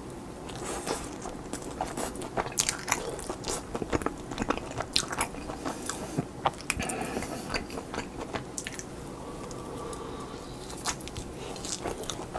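A person chewing a mouthful of pan-fried hotteok dumpling close to the microphone. A run of sharp mouth clicks and crackles thins out for a few seconds past the middle and picks up again near the end.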